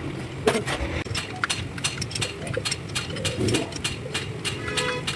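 Metal tools and engine parts clinking and knocking, irregular sharp taps with a brief metallic ring near the end, over a steady low hum.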